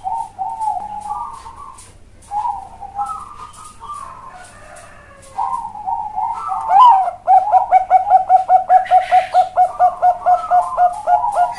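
Zebra dove (Bangkok-strain perkutut) cooing: a few warbling coo phrases, then from about seven seconds a fast, even run of short clipped coo notes, about four to five a second.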